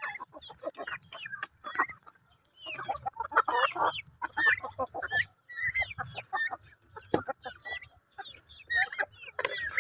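A flock of chickens clucking in short, overlapping calls, several birds at once, in bursts with brief gaps, and a few sharp clicks among them.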